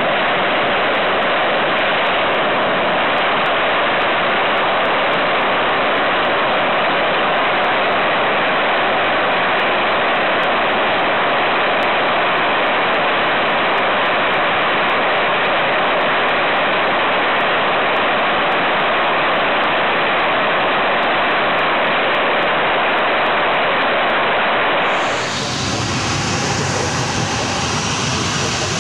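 RAAF F-111's Pratt & Whitney TF30 turbofan running at high power on a ground engine test, with the afterburner lit: a loud, steady, unbroken jet noise. About 25 seconds in it cuts to a quieter, deeper jet engine sound from another clip.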